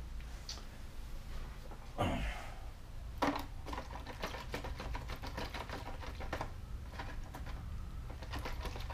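Small hard resin prints being swished by hand in a plastic tub of isopropyl alcohol, giving rapid, irregular clicking and rattling against the tub, after a short scrape about two seconds in. A steady low hum runs underneath.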